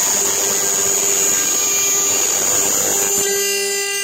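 Probotix CNC router's water-cooled spindle running with a steady high whine while its bit cuts a carbon fiber part, a loud, dense cutting noise. About three seconds in the cutting noise eases, leaving mostly the steady whine.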